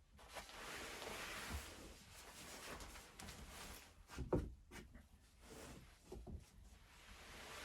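Faint rustling and handling noises, with a soft knock about four seconds in.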